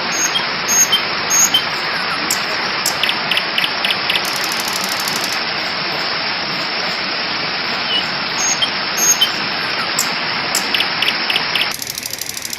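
Water pouring down an artificial garden waterfall into its pond, a steady rushing with a few faint high chirps over it; it cuts off abruptly near the end.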